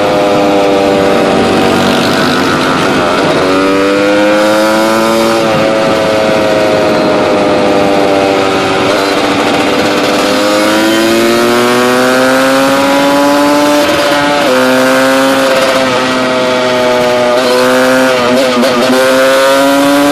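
Quad's CR250 two-stroke engine running hard at speed, its pitch climbing through each gear and dropping at the shifts, several times over.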